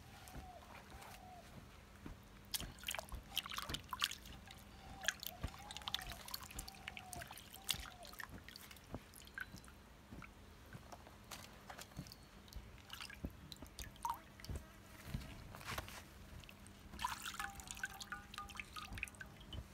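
Water splashing, sloshing and dripping in a metal basin as whole trigger fish are rubbed and rinsed by hand, in short irregular splashes and drips.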